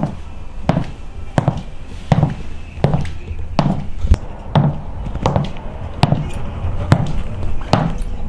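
Platform high-heeled boots walking at a steady pace, each step a sharp heel click with a low thud, about a dozen steps in all.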